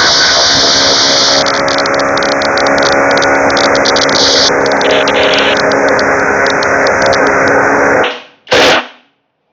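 Cordless impact driver hammering steadily as it drives a screw, stopping abruptly about eight seconds in, then a brief second burst just after.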